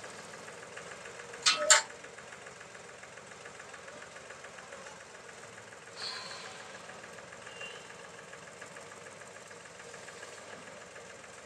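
Tractor's diesel engine running steadily at idle. Two sharp knocks come close together about a second and a half in, and a fainter knock with a brief ring comes around six seconds.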